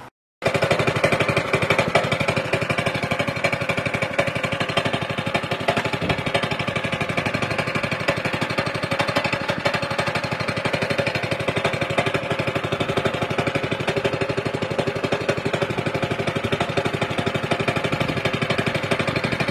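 Walk-behind power trowel's small gasoline engine running steadily under load, a loud, fast, even pulsing heard close up, while it floats the fresh concrete slab.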